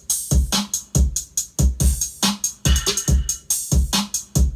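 A programmed electronic drum beat playing back from music production software: deep kick drums, hi-hat and snare hits in a steady repeating loop, with a short pitched sound recurring in the pattern. The drums come from a Kontakt drum kit triggered by MIDI.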